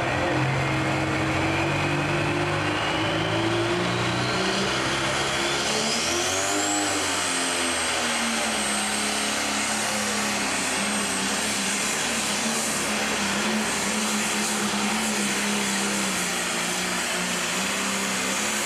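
Turbocharged diesel engine of a 10,000 lb pro stock pulling tractor running flat out under the sled's load. The turbo's whine climbs steadily over the first several seconds to a high, held pitch. The engine note wavers about six seconds in, then settles and holds steady.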